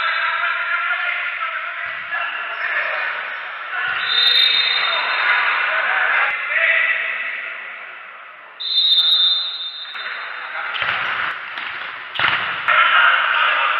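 Futsal game sound in a reverberant sports hall: players and spectators shouting, long referee whistle blasts three times, and two sharp thumps of the ball being struck near the end.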